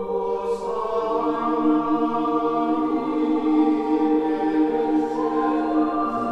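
Choir of monks chanting in long, held notes that shift pitch every few seconds. It is played back through Boston Acoustics CR6 bookshelf speakers as a listening demo.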